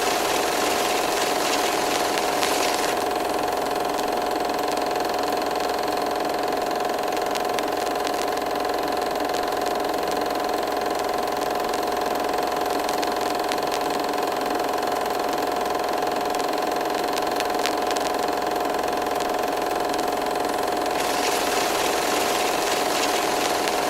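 A motor or engine running steadily at constant speed, with a hiss that swells over it for the first few seconds and again near the end.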